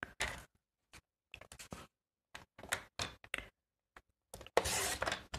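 Cardstock being lined up and trimmed on a paper trimmer to shave off a thin sliver: scattered light clicks and taps, then a short scraping stretch near the end.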